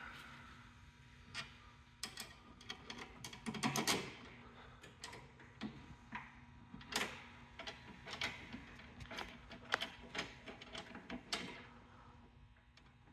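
Irregular metallic clicks and clinks of a hand wrench on the door hinge bolts of a Peterbilt 379 cab door as they are tightened, with a louder rattle about four seconds in.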